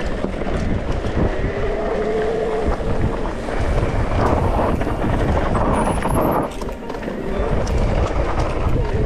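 Mountain bike riding a dirt trail, heard from the rider's camera: wind buffeting the microphone with a heavy low rumble, tyres on dirt and the bike rattling with many small clicks, with a steady hum coming and going.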